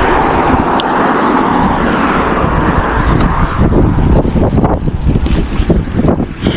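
Wind rushing over a GoPro's microphone on a moving bicycle, a loud rumbling hiss mixed with tyre noise from paving and road. From about halfway through it turns choppier, with short uneven knocks.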